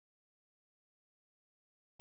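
Silence: the soundtrack is muted.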